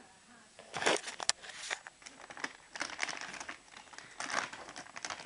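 Irregular crinkling and rustling close to the microphone, something crinkly being handled, loudest about a second in.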